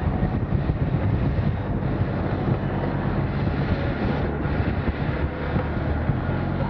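Motorcycle engine running steadily as the bike rides slowly up close, with wind rumbling on the camcorder microphone.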